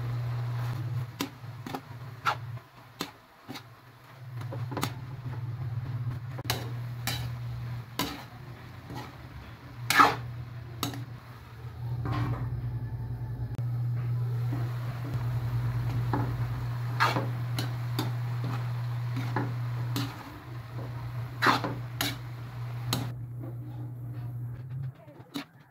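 Metal spatula clinking and scraping against a steel wok as vegetables are stirred and tossed: many separate knocks, the loudest about ten seconds in. A steady low hum runs underneath.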